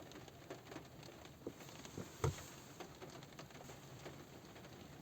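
Light rain pattering on a car roof, heard from inside the car: scattered single drops tapping, with one louder drop strike a little past two seconds in.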